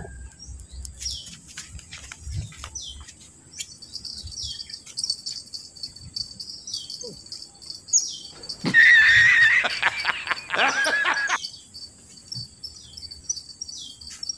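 Small birds chirping in repeated short falling calls over a steady high insect drone. About nine seconds in, a louder noisy sound with a wavering high tone comes twice over about three seconds.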